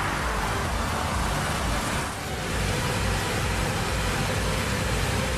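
Claas combine harvester running while its unloading auger pours maize kernels into a trailer: a steady rushing noise over a low engine rumble.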